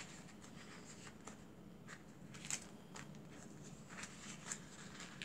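Faint rustling and light taps of paper sticker sheets being handled, a few soft clicks scattered through.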